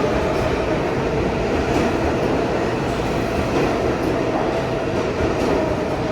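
New York City subway L train car running on the rails, a steady rumble of wheels and track noise with a faint steady whine held over it.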